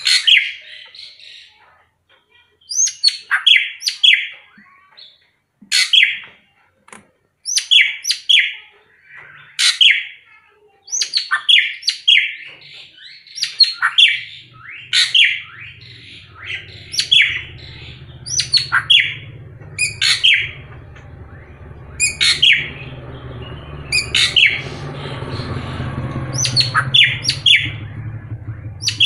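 Racket-tailed drongo (srigunting krantil) calling over and over: loud short phrases of a few sharp, falling whistled notes, one every second or two. A low rumble comes up in the background about halfway through and swells near the end.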